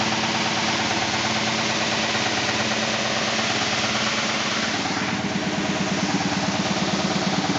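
SCMI Sandya 3 37-inch wide belt sander running, a steady machine hum with a fast pulsing. About five seconds in, the sound changes to a coarser, pulsing rumble as the machine is stopped on its brake.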